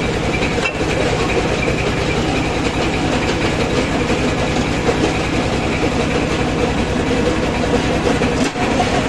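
Small stone jaw crusher running steadily, a fast, even mechanical rattle with its drive running underneath, as crushed stone comes off its mesh screen.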